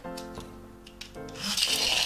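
Background music with a simple melody. About one and a half seconds in, a loud rasping rub starts as a small red plastic toy moves across the tabletop.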